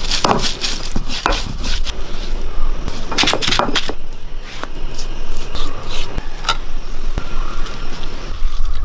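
Kitchen utensils clinking and scraping against a cooking pan in a string of irregular sharp knocks, bunched together near the start and again about three seconds in.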